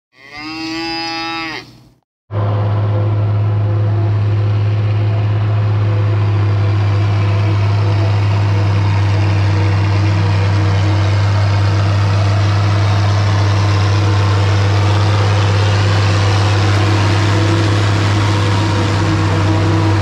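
A single cow moo, rising then falling, lasting about two seconds. After a brief gap comes the steady drone of an International 1256 diesel tractor powering a New Holland 790 forage harvester as it chops standing corn and blows it into a wagon.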